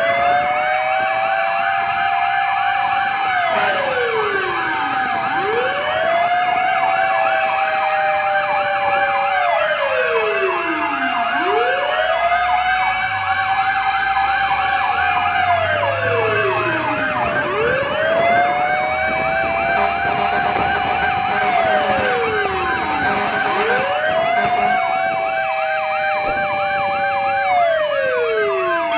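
Fire truck sirens wailing, several at once: each rises quickly, holds, then slides back down about every six seconds, overlapping one another, with a fast warbling siren running alongside.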